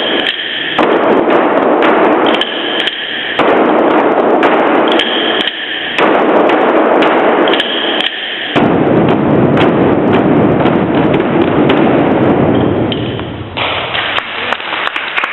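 A group of drums beaten together in a loud, dense rhythm, with a short break about every two and a half seconds. Near the end the drumming stops and applause begins.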